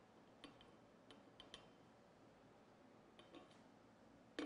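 Faint metal clicks and clinks as the factory inner bearing spacer is handled and set into a motorcycle wheel hub, with one louder clink just before the end.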